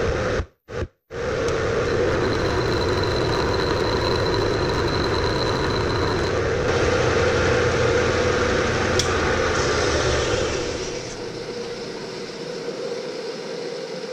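Bridgeport milling machine running a fly cutter with a high-speed steel bit through a dry facing pass on a metal block, a steady machining noise; the resulting finish is not as smooth, with chatter the machinist blames on too much speed and no lubricant. The sound drops out twice very briefly near the start, and about eleven seconds in the low rumble falls away as the spindle stops.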